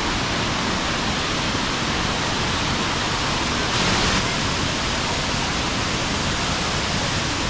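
Nuorilang Falls, a wide waterfall, with water rushing down steadily in a dense, unbroken noise that swells briefly about four seconds in.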